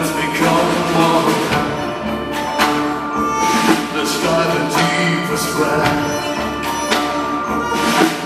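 Live band and orchestral ensemble playing a slow song, a male voice singing over sustained instruments, with regular percussion strikes.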